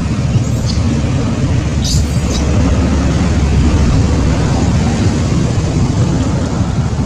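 Steady low rumbling background noise, with a few brief high squeaks about half a second and two seconds in.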